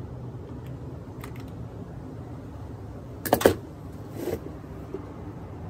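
Parts of an old Century fan's motor housing knocked and scraped while being handled: a short cluster of sharp knocks about three seconds in and a softer scrape about a second later, over a steady low hum.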